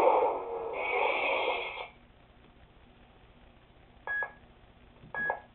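Lightsaber soundboard (Crystal Focus 6.1) playing through its small speakers: the blade sound runs for about two seconds and stops as the blade goes dark. Then come two short beeps about a second apart.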